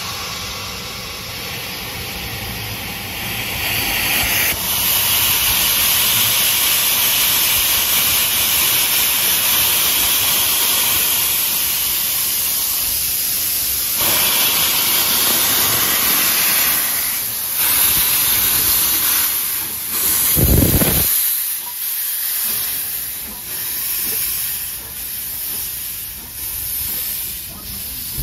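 A narrow-gauge steam locomotive venting steam in a loud, steady hiss. Later the hiss comes in repeated puffs about once a second, with one brief low thump between them.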